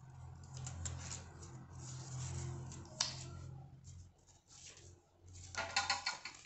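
Folded paper sheets being handled and rustled, with a sharp tap about three seconds in and a burst of crinkling near the end, over a low steady hum.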